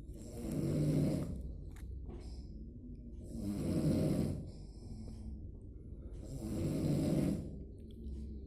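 A person snoring: three loud, low, rattling snores about three seconds apart, with quieter stretches between them.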